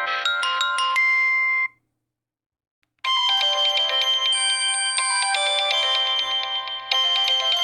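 Nokia 8000 4G default ringtones: one electronic melody ends on a held note about a second and a half in, and after a second or so of silence the next ringtone's many-note melody begins.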